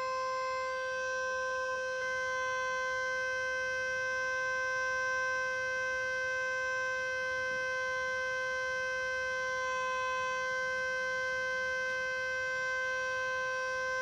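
Vixen Horns siren sounding one steady, unbroken tone with a rich stack of overtones, its pitch not rising or falling.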